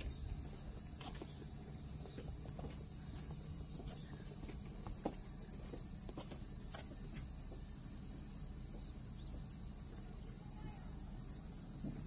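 Insects chirping outdoors: a high-pitched, evenly pulsing chirp that keeps on steadily over a low rumble.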